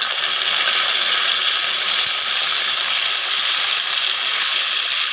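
Chopped tomatoes and onions sizzling in hot oil in a pan, a steady crackling hiss, just after the tomatoes go in.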